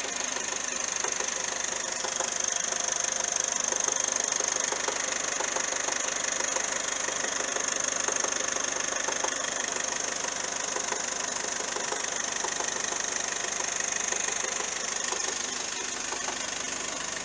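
Car engine idling with a steady high-pitched whine and fast light ticking. This is the strange noise that appeared after the timing belt kit was replaced and the original water pump was kept.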